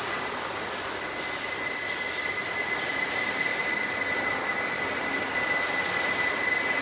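Wood CNC nesting router running, a steady rushing machine noise with a steady high whine through it, growing a little louder about two seconds in.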